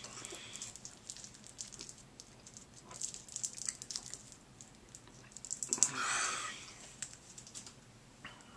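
Candy bar wrapper crinkling in short spells of crackles, loudest about six seconds in.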